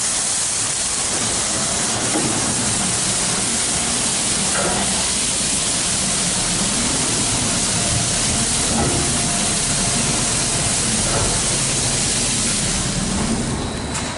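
Mark VII ChoiceWash XT car wash gantry spraying water over a car: a steady, loud hiss of spray with a low machine hum underneath, dying away near the end.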